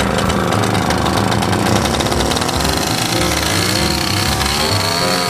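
Small two-stroke off-road motorcycle engines running and revving, their pitch rising and falling.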